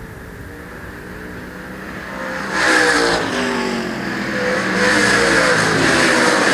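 A field of IMCA late model race cars with V8 engines running hard. The sound grows suddenly louder about two and a half seconds in as the pack comes down the straight and passes close by, with several engine notes rising and falling over one another.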